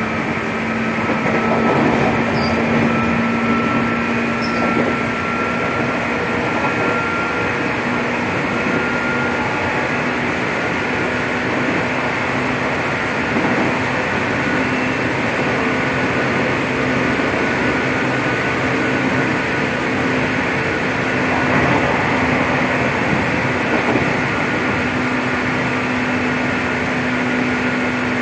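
Interior running noise of an ex-JR 205 series electric commuter train's motor car at speed: a steady hum and a higher traction-motor whine over the rumble of wheels on rail, loud throughout. The whine rises slightly over the first ten seconds, and a few faint clicks come early on.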